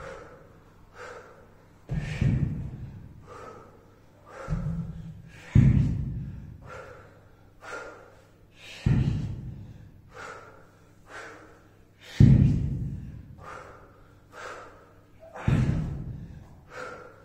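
A person breathing hard from kettlebell exertion, with short, forceful puffs of breath. A low thud comes every three seconds or so.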